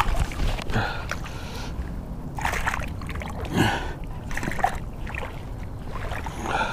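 A hooked bass thrashing in shallow, weedy water: a series of separate splashes about a second apart as a hand reaches in to grab the fish.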